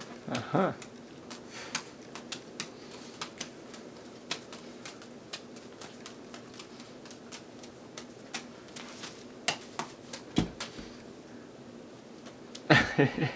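Juggling balls slapping into the hands: an irregular run of short, sharp catches, about two a second, with a duller thump about ten seconds in.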